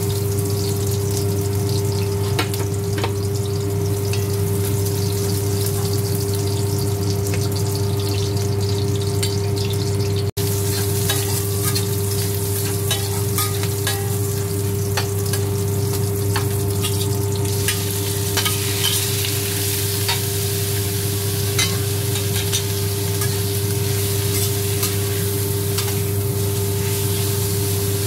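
Chopped garlic, ginger and spring onion sizzling and crackling in hot oil in a stainless steel wok, stirred with a metal spatula that scrapes the pan. A steady low hum runs underneath, and the crackle gets busier past the middle.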